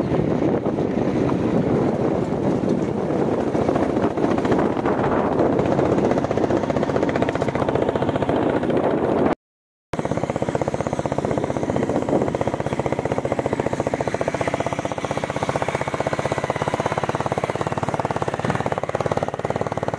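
Royal Enfield Bullet 350's single-cylinder engine running steadily while riding, a fast even thump. The sound cuts out completely for about half a second midway, then carries on.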